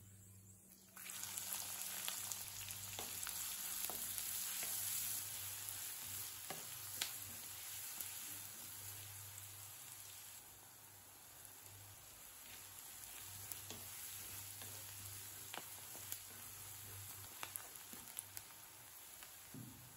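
Chopped onions hitting hot oil in a nonstick wok: a sudden loud sizzle about a second in that settles to a softer, steady sizzle. A wooden spatula stirs them, with light taps and scrapes against the pan.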